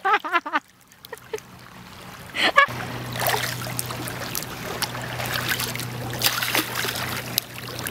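Shallow seawater sloshing and splashing around hands and legs as people wade and reach into it. From about three seconds in, a steady low hum runs underneath.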